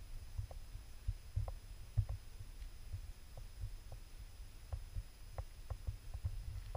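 Handling noise of a GoPro camera carried through forest: irregular low thumps and rumble as movement and footfalls knock the housing, with a scatter of faint short ticks.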